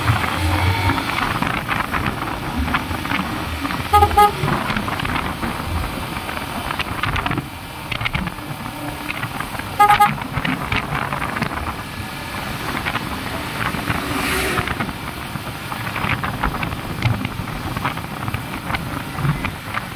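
Yamaha motorcycle riding at about 30 to 40 km/h, with steady engine and road-wind noise, and a horn tooting briefly twice, about four seconds in and about ten seconds in.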